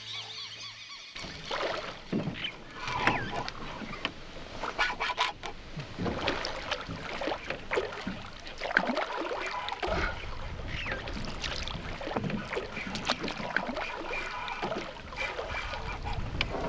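Water splashing at the surface of a calm river, where a fish breaks the surface, with birds calling.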